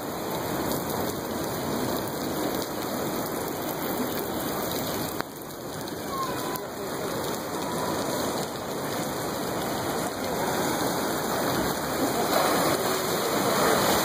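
Steady rushing noise of ocean surf and breaking waves, growing a little louder near the end.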